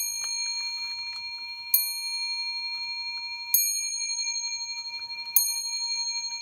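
Hermle 241-080 time-and-strike clock movement's hammer striking its small bell, four strokes evenly spaced a little under two seconds apart, each ringing on into the next.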